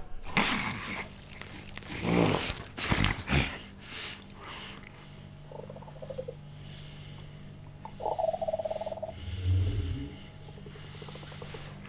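Horror-film sound design: a few sudden noisy crashes in the first few seconds, then a low steady drone under rasping, animal-like creature growls about six and eight seconds in, and a deep rumble near ten seconds.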